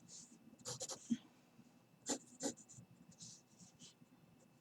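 Graphite pencil scratching on drawing paper in a series of short, faint strokes.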